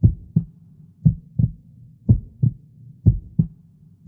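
Heartbeat sound: four paired lub-dub thumps, about one beat a second, over a low steady hum.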